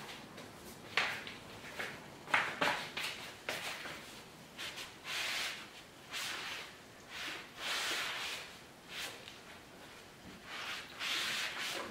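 Microfiber cloth rubbed in firm, repeated strokes over an adhesive knee pad on a motorcycle fuel tank, pressing its 3M tape backing down. A couple of sharp taps about one and two and a half seconds in.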